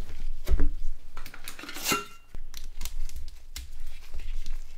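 Clicks, taps and light clinks of small plastic phone parts and metal tools being handled as a Nokia 6290 mobile phone is taken apart, with one short ringing clink a little under halfway.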